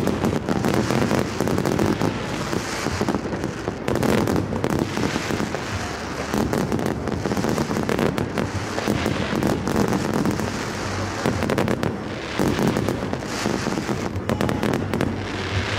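Fireworks barrage: aerial shells bursting and crackling in quick succession, many bangs overlapping without a break.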